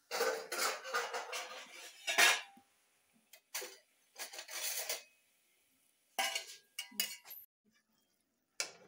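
Metal spatula scraping and knocking against a metal kadhai while stirring thick carrot halwa. It comes in irregular bursts: a long stretch of scraping at the start with a sharp knock a little after two seconds, then shorter strokes with pauses between them.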